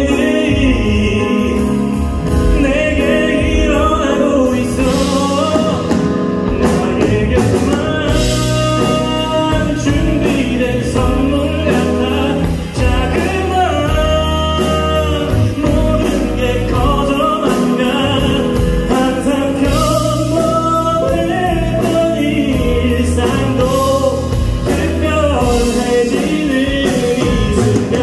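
A man singing live into a handheld microphone, backed by a live band with drums and bass guitar, heard over the hall's PA through a phone's microphone.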